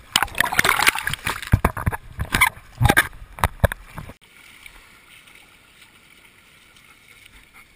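Shallow sea water splashing and sloshing against a chest-mounted GoPro on a wading dog, with many irregular knocks against the camera housing. About four seconds in it cuts to a quiet steady hiss.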